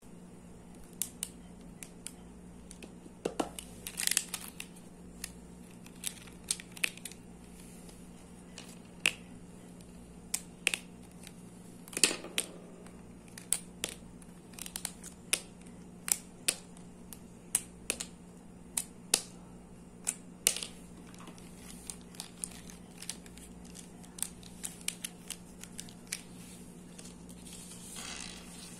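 Plastic felt-tip marker caps being pulled off and set down on paper, with markers knocking together in the hand: a string of sharp clicks and taps over a steady low hum.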